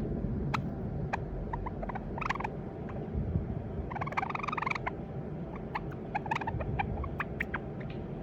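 White Java sparrow practising its song: scattered short chips and clicks, with a longer warbling phrase about four seconds in, over a steady low hum.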